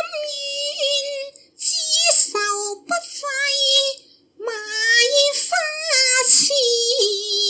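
A woman singing a Cantonese opera melody in a high voice, the pitch sliding and wavering within each word. The line comes in several short phrases with brief breaks between them.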